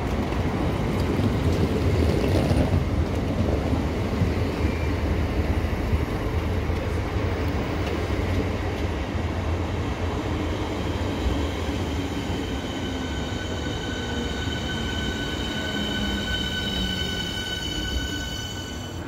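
Southeastern Class 465 Networker electric multiple unit running into the platform and slowing: a low rumble of wheels and motors, loudest in the first few seconds and easing off. About twelve seconds in, a high-pitched squeal of several steady tones comes in and grows as the train slows.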